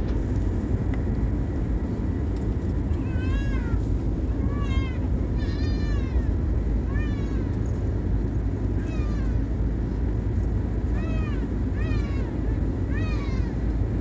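Steady low roar of jet engines and airflow heard inside an airliner cabin during climb-out. From about three seconds in, about ten short, high cries rise and fall in pitch one after another, in the manner of meowing.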